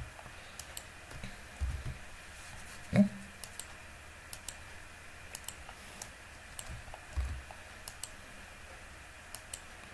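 Typing on a computer keyboard: sparse, irregular keystroke clicks, with a couple of soft low thumps.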